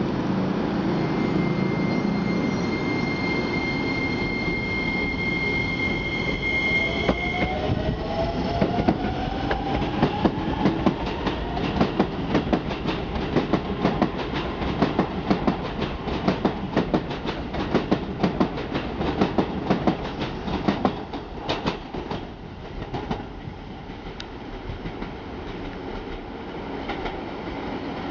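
Hokuso Railway 7500-series electric commuter train pulling out: a steady electric whine gives way to a tone rising in pitch as it accelerates. Then come rapid, regular wheel clicks over the rail joints as the carriages pass, thinning out and fading about two thirds of the way through as the train draws away.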